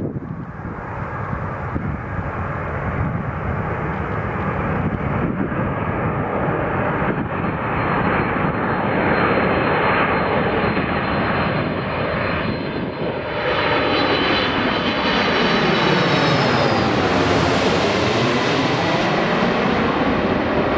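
Boeing 747-400 airliner on final approach passing low overhead: the noise of its four jet engines with a high whine, growing louder and loudest about 17 seconds in, its tone sweeping as it goes by.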